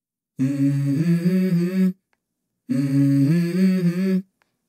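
Music: a wordless hummed vocal line in two phrases of about a second and a half each, separated by short silences. Each phrase steps up in pitch partway through.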